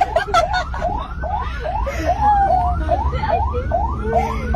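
Ambulance siren on a fast yelp: a rapidly repeating rising wail, about two and a half sweeps a second, over a low rumble.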